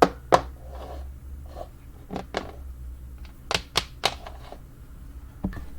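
Toy horse figures knocking and clacking on a hard surface in irregular sharp taps, with a steady low hum underneath.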